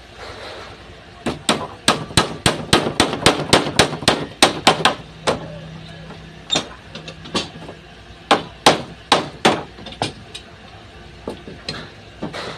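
Hammer blows in quick succession, about four or five strikes a second, starting about a second in and stopping near the halfway mark, then a shorter run of strikes around eight to nine and a half seconds in, followed by a few lighter taps.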